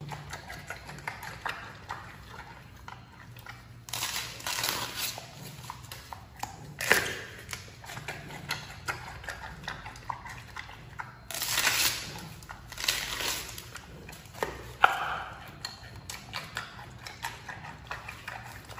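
Giant panda biting and chewing a fresh bamboo shoot: a steady run of small crisp crunches, with louder crunching bites into the fibrous stalk several times.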